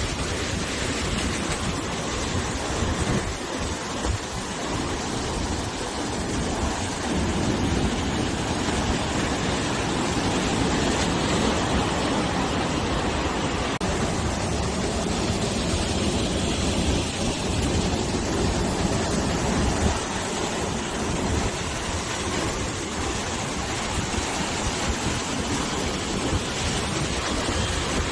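Ocean waves washing on the shore, swelling and easing over several seconds, with wind buffeting the microphone.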